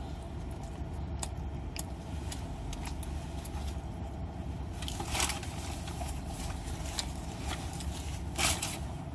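Food and its paper wrapping being handled for eating: small clicks and rustles, with two louder rustles about five and eight and a half seconds in, over a steady low hum.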